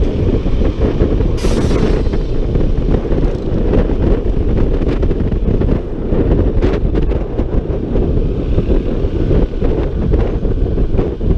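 Steady wind rush buffeting the microphone of a Honda ADV 150 scooter riding at road speed, with road and engine noise underneath. A brief hiss comes about a second and a half in.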